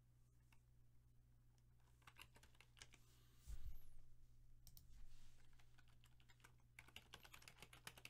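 Faint typing on a computer keyboard: scattered runs of key clicks, with a soft low thump about three and a half seconds in, over a steady low electrical hum.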